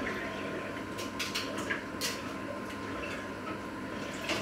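A few light clicks and knocks of dishes and utensils being handled at a kitchen sink, over a steady hum.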